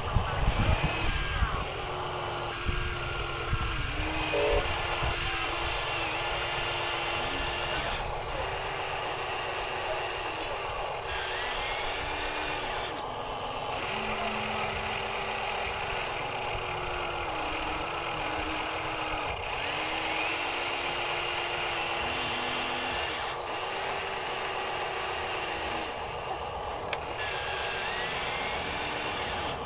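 Huina RC excavator's small electric motors whining as the boom, arm and bucket work, the pitch stepping up and down every second or two as each motion starts and stops.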